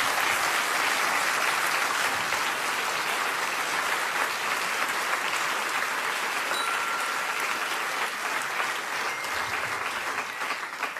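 Studio audience applauding steadily after a punchline, thinning out near the end.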